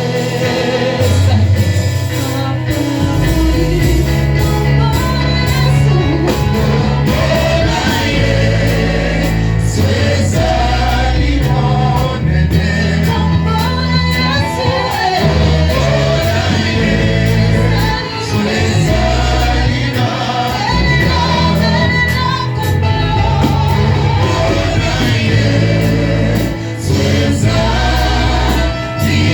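Gospel choir singing with a band, over a bass line that moves in long held notes and a steady percussion beat.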